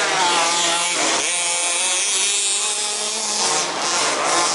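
Several 1/5-scale RC Baja cars' small two-stroke petrol engines buzzing and revving together while racing, their pitches rising and falling as the throttles open and close.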